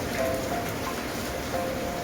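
Steady rain falling and pattering on surfaces, with a soft melody of short held notes over it.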